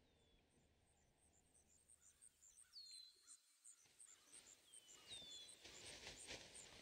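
Faint night-time ambience: insects chirping high in an even rhythm of about five chirps a second, with a few short, falling bird calls. A soft rustling builds near the end.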